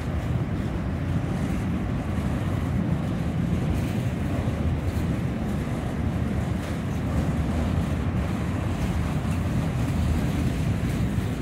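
Autorack freight cars rolling past: a steady low rumble of steel wheels on rail, with wind buffeting the microphone.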